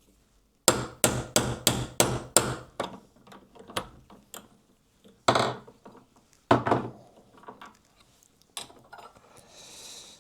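Small hammer tapping a pin punch to drive a flywheel off a small model-locomotive motor's shaft, held in a vise: a quick run of about seven light metal taps about a second in, followed by single, more spaced-out blows.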